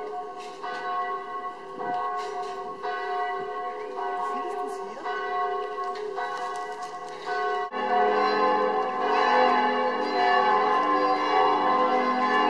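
Church bells ringing, struck again and again in a steady peal. About eight seconds in, deeper bells join and the ringing becomes louder and fuller.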